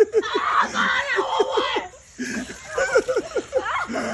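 A person laughing hard in quick runs of short bursts, with a brief pause about two seconds in.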